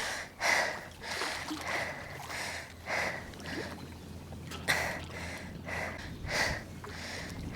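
A person breathing hard in short, irregular puffs close to the microphone, about one or two breaths a second.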